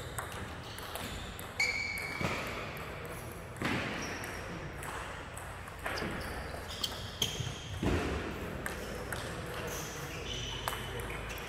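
Table tennis ball clicking off bats and the table in a large hall, a sharp click every second or so at an uneven pace. There are a few short high squeaks between the hits.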